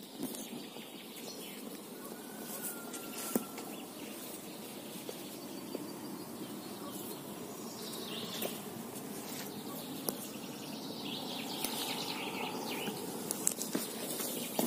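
Rustling and scraping of an inflatable kayak being dragged over dry grass and brush, with footsteps, small clicks and a few scattered bird chirps.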